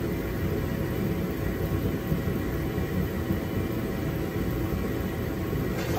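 Shop heater running: a steady low noise with a faint steady hum over it. The speaker blames it for the bad audio.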